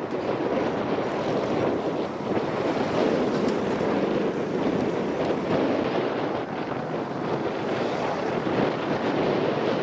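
Steady wind rushing over the microphone of a camera carried on a moving motorcycle, mixed with road noise.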